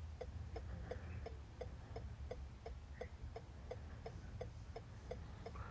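Hazard-light flasher ticking in the car cabin, faint and even at about three ticks a second.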